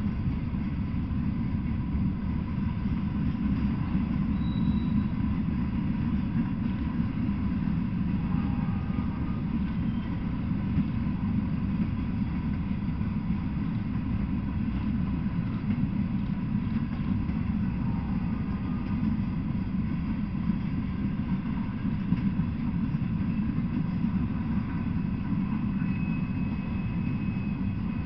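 Freight train of gondolas, covered hoppers and tank cars rolling past, a steady low rumble of the cars on the rails.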